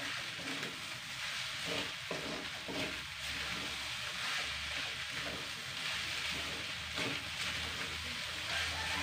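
Fried rice sizzling in a wok as it is stir-fried, with a spatula scraping and knocking against the pan now and then.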